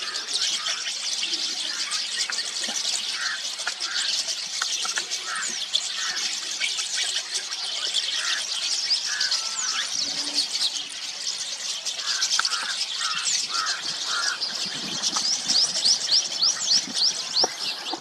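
Rosy starlings chattering: a dense, continuous stream of overlapping squeaky chirps and whistles.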